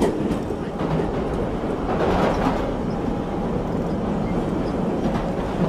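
Interior running noise of a London Underground train carriage: a steady rumble of the moving train.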